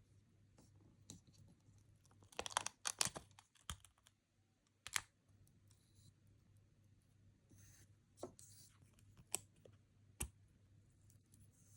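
Stickers and paper being handled: faint scattered taps and clicks, with a short burst of crinkly clicks about two and a half seconds in and a few soft rustles later on.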